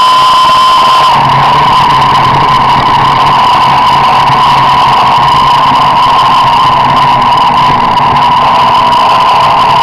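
Car driving along a road, heard from inside: a loud, steady high-pitched whine over a low, even engine hum.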